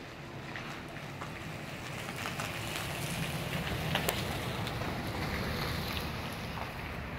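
Wind gusting across the microphone with a low rumble, swelling to a peak about halfway and easing off again, with a few faint clicks.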